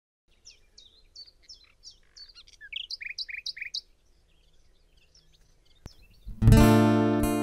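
Small birds chirping, a quick run of short, high repeated notes for the first few seconds. After a short lull, a strummed acoustic guitar chord comes in loud near the end and rings on.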